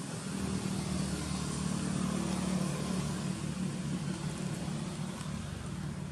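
A motor vehicle's engine running with a steady low hum that starts abruptly and slowly fades in the second half.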